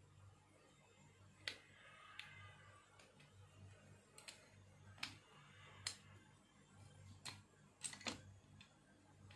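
Faint, scattered metal clicks and taps from a duralumin Atlas-type bipod mount being handled and fitted onto a rifle's rail, about seven sharp clicks over a low steady hum.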